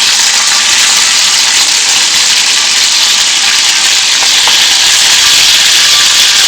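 Prawns frying in hot oil in a pan, a loud, steady sizzle.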